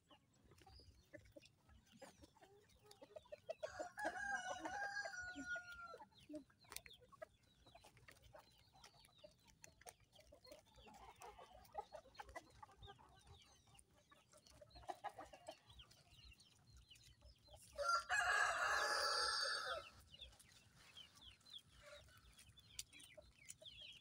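Backyard chickens: a rooster crows about four seconds in and again, louder and closer, about eighteen seconds in, with hens clucking faintly in between.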